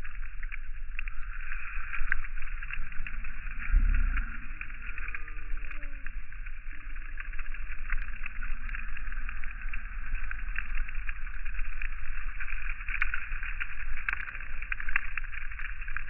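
Outdoor sound slowed down along with the slow-motion footage: a steady rushing, crackling noise, with a few low, drawn-out falling cries from gulls a few seconds in and a low thump about four seconds in.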